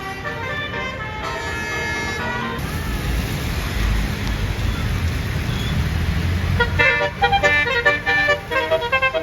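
Basuri 'telolet' multi-tone air horn on a tour bus sounding a chord of several steady tones at the start. A stretch of low rumble and hiss follows in the middle. Near the end the horn plays a quick melody of short stepped notes.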